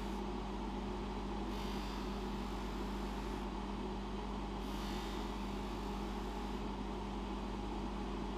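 Bench polishing motor running steadily with a buffing wheel, a silver watch case held against the wheel. Two brighter hissing spells come and go as the case is worked on the wheel.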